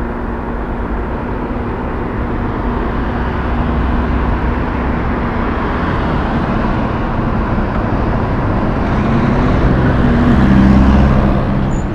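Diesel tractor-trailer hauling a shipping container on a chassis drives past in city traffic, with engine drone and tyre noise. The sound grows steadily louder, peaks about ten to eleven seconds in as the truck goes by, then drops off.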